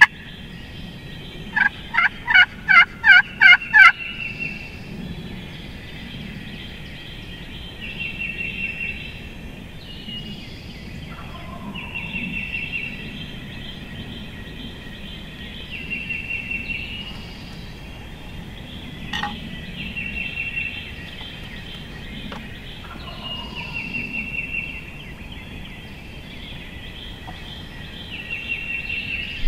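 Wild turkey gobbler gobbling once, a loud rapid rattle of about eight notes about two seconds in. A fainter short high bird trill repeats about every four seconds behind it.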